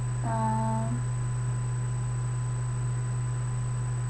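Steady low electrical hum with a thin high whine above it, likely picked up by the webcam recording. About half a second in, a woman's voice gives a short, level hum.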